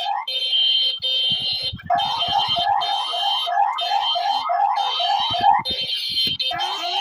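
Mock Emergency Alert System earthquake-warning alarm: a rapid run of short rising chirps, about three a second, layered with a steady high tone that cuts in and out. Short low thumps are mixed in, and the alarm drops out briefly about a second in and again near the end.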